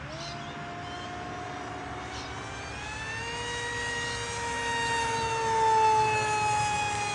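Electrafun XP model plane's Moxie 3500kv brushless motor and 4.5 x 4.5 propeller whining in flight. The high whine climbs in pitch about three seconds in, grows loudest near six seconds as the plane passes, then drops slightly in pitch.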